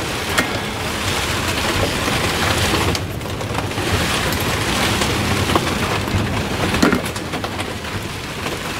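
A steady hiss, with a couple of light clicks as hands handle the metal clutch parts of a small motorcycle engine.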